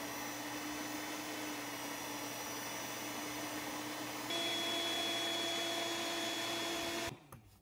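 Electric air pump running steadily as it inflates an Intex air mattress. A little past halfway its hum steps up in pitch and gets louder, and about seven seconds in it cuts off suddenly.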